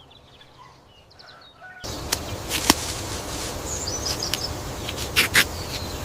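Outdoor ambience with birds chirping. About two seconds in, a steady rushing background starts, with a few sharp clicks or taps over it.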